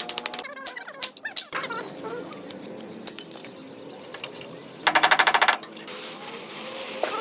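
A rapid-hitting power tool working on car body sheet metal in short bursts: a brief one at the start and a louder one of under a second about five seconds in, followed by a steady hiss.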